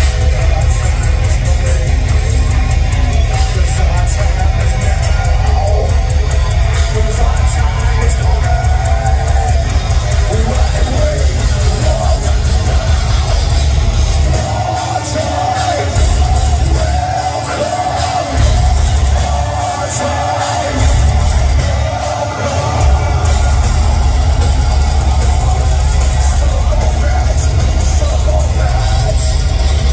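Heavy metal band playing live, loud, with distorted electric guitars, bass and drums, recorded from within the crowd. Between about 14 and 23 seconds the low end of the drums and bass drops out several times in short stop-start breaks before the full band comes back in.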